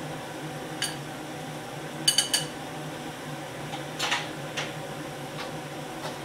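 Kitchen utensils clinking against a bowl and wok: one clink about a second in, three quick ringing clinks about two seconds in, and a short clatter around four seconds. Under them runs the steady hum of a commercial wok range.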